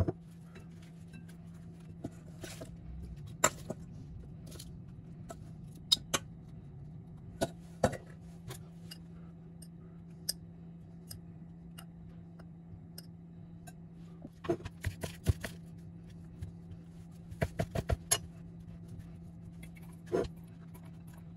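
Scattered clicks and taps of metal kitchen tongs and food being set down on a ceramic plate as a salad is plated, with a few quick clusters of taps. A steady low hum runs underneath.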